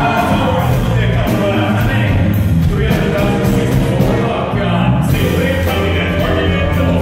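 Live rock band playing loudly with a vocalist singing, heavy bass and drums, recorded through a phone's microphone.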